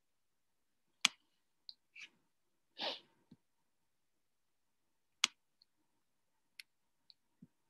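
Scattered sharp clicks in a quiet room, two louder ones about a second in and just past five seconds, with a short rustle near three seconds, picked up over a computer's call microphone.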